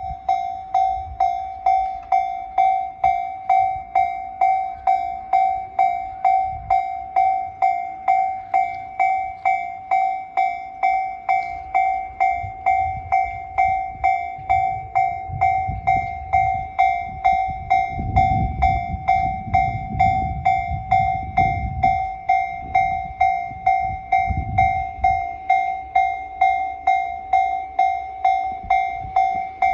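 Japanese railway level-crossing warning bell of the Tobu Tōjō Line type, an electronic ding repeating at a steady pace of about two strikes a second. Partway through, a train passes over the crossing, its low rumble loudest about two-thirds of the way in.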